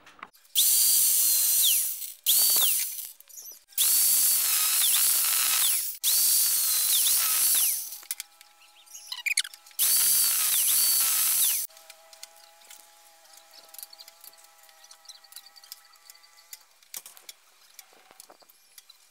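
Angle grinder with a cutting disc cutting aluminium tubes to length, run in about five loud bursts over the first eleven seconds, its high whine dipping now and then. Faint light taps follow near the end.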